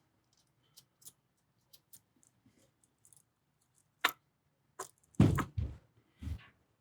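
Small steel ball bearings clicking and ticking as they are dropped into a Saginaw steering gear's ball nut and return tube and the worm shaft is turned. Scattered light clicks, a sharper click about four seconds in, then a few louder knocks near the end.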